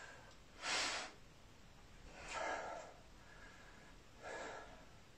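A man's heavy breathing after a hard abdominal set: three loud breaths out, about two seconds apart, each a little weaker than the one before.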